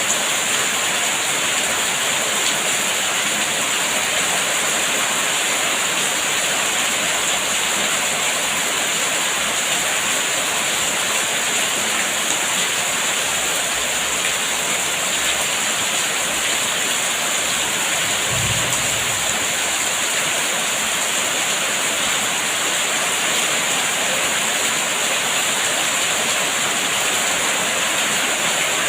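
Steady heavy rain, an even unbroken hiss, with a brief low thud about two-thirds of the way in.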